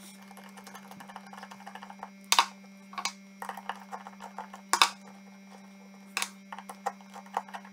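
Screwdriver turning a screw out of a shotgun's trigger-plate tang: a run of small metallic clicks and ticks, with a few sharper clicks about two and a half, three and five seconds in. A steady low hum lies under it.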